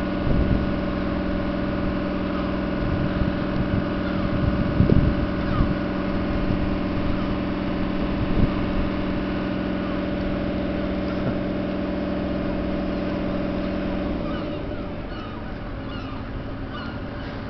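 An engine running steadily with an even hum, which drops and gets quieter about fourteen seconds in.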